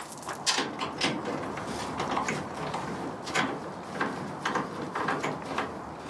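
Socket ratchet and extension working the nuts at the end of a pickup tailgate: irregular metallic clicks and knocks, about one or two a second.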